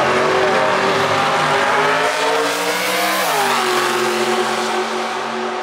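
Drag-race car engine at full throttle down the strip. Its pitch climbs slowly, then glides down about three seconds in and holds steady at the lower pitch.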